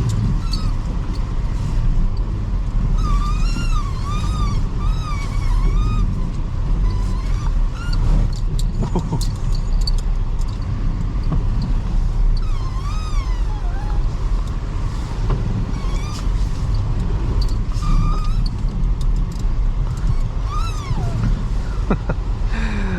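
A 2005 Toyota Highlander's 3.3-litre V6 running under power while the car spins a donut in snow, with a steady low rumble of engine and tyres. A thin whine rises and falls several times over it.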